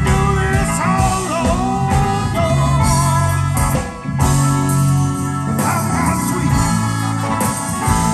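Live blues-rock band playing an instrumental passage, a lead line with bending notes over the guitar, bass and drums, with a brief drop in level about four seconds in.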